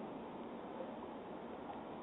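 Steady faint hiss of background noise, with no distinct sound events.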